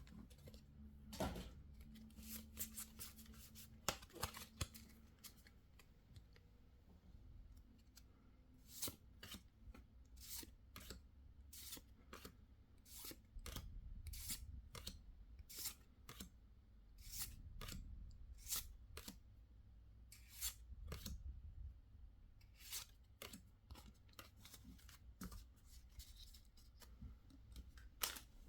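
Hands handling Pokémon trading cards and packaging: a run of short, crisp snips and clicks, bunched together in the first few seconds and then coming about once a second.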